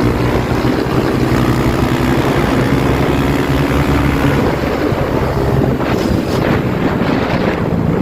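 Single-cylinder engine of a Honda CG Start motorcycle with an aftermarket exhaust, running steadily under way, with wind buffeting the microphone.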